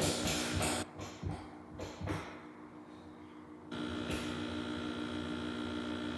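Steady electrical hum with hiss from an old television's speaker playing a recording, with a few brief noisy swishes in the first two seconds. The hiss drops away for about three seconds in the middle, then returns with the hum.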